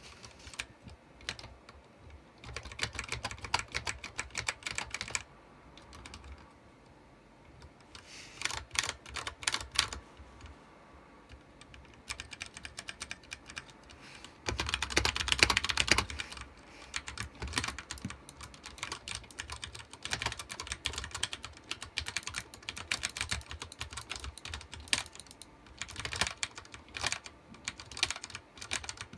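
Ducky One 2 Mini mechanical keyboard with Cherry MX Brown switches being typed on, in bursts of key clicks separated by short pauses, with a very dense flurry of keystrokes about halfway through and steady typing toward the end.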